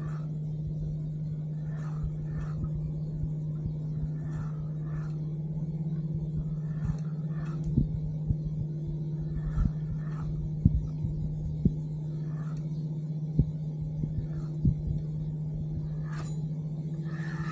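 Wind rumbling on the microphone, with a steady low hum underneath and short light taps every second or two.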